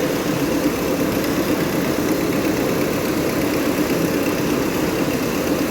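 Heavy machinery running with a steady drone.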